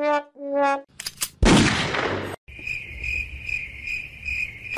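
A cricket chirping: a high, even trill pulsing a little over twice a second through the second half. It is preceded by a short run of pitched musical notes at the start and a loud rushing noise about a second and a half in.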